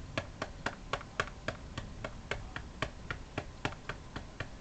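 A hand patting the hard plastic back of a RealCare Baby infant simulator, about four quick, even pats a second: burping the doll after a feeding.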